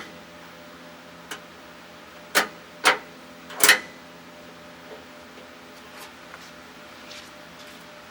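A handful of sharp clicks and knocks, four of them within a couple of seconds and the last a little longer, as the truck's new pull-type headlight switch is worked through its positions to test the lights.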